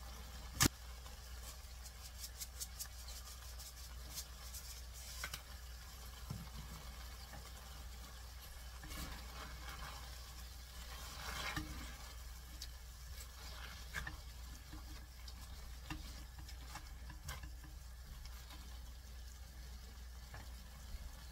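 Soybean sprouts in sauce sizzling gently in a stainless steel pan over low heat, stirred with a spatula that now and then clicks against the pan, with one sharp knock near the start. A steady low hum runs underneath.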